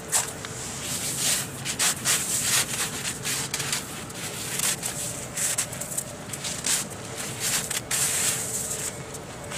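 Old, sherbet-like granular snow crunching and scraping in repeated short bursts as a shoe kicks through it and a gloved hand presses and rubs into it.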